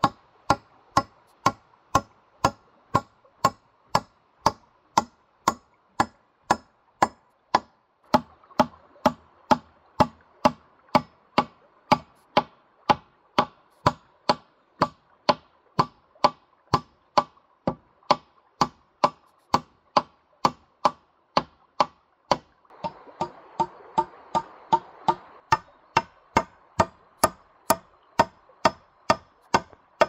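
Sharp chopping strikes in a steady, even rhythm of about two a second, over the rush of a running stream.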